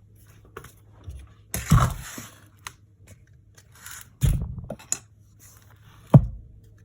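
Handling noises while a MacBook Air is being plugged in for testing: small clicks and scrapes, with three louder thuds about two, four and six seconds in, over a faint steady low hum.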